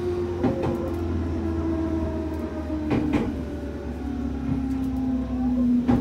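JR Central Series 211-5000 electric train slowing into a station: the traction motor whine falls in pitch in steps as the train decelerates, over a low running hum. Three short knocks from the wheels and running gear come about 2.5 seconds apart.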